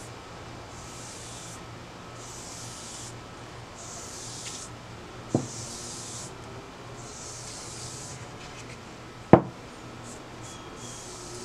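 Bristle brush swishing wood stain along a red oak chair rail, a soft stroke about once a second. Two sharp knocks about four seconds apart cut in, the second louder.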